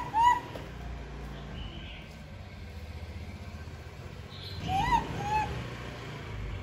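Baby monkey calling for its mother with short, high, rising-and-falling coos: two quick calls at the start and two more about five seconds in.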